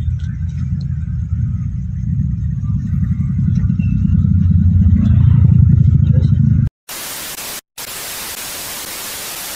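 Low rumble of a Suzuki Carry pickup's engine and road noise heard inside the cab, growing louder over the first six seconds or so. It then cuts off abruptly to a steady TV-static hiss that drops out twice for a moment.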